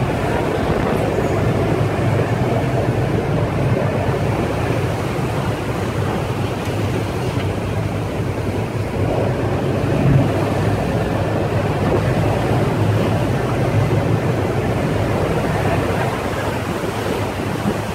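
Sea surging and churning around the platform's legs and against a crew boat's hull, over the steady low hum of the boat's engine, with wind on the microphone.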